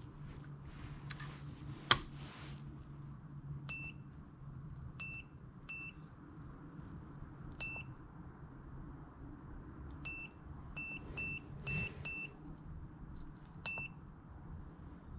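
Fujikura 70R+ fusion splicer giving short key-press beeps as its menus are stepped through, about ten in all, some single and some in quick runs of two to four. About two seconds in, a sharp click, the loudest sound, as the splicer's wind-protector lid is snapped shut.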